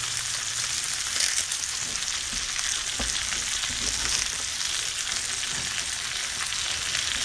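Turkey sausage and bacon drippings frying in a stainless skillet under a heap of raw cabbage, a steady sizzling hiss with a few small pops. Hands rustle and break up the cabbage leaves on top.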